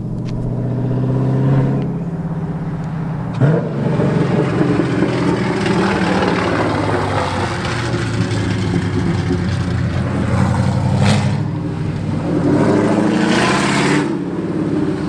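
Straight-piped 2002 Ford Mustang GT 4.6-litre V8, with long-tube headers, an X-pipe and no mufflers or catalytic converters, running loud as the car makes a slow drive-by. The exhaust note rises in the first couple of seconds, with a sharp knock about three and a half seconds in.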